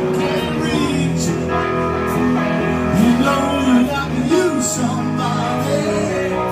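Live rock band playing: electric guitar, bass guitar and drums, with singing.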